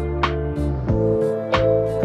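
Calm instrumental relaxation music: held chords with plucked notes struck about every half second over a soft low beat.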